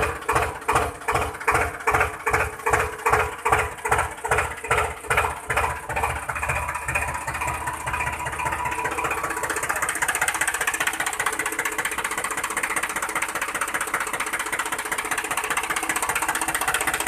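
Small motor of a home-built model tractor running, pulsing about two to three times a second at first, then settling into a steady hum after about seven seconds.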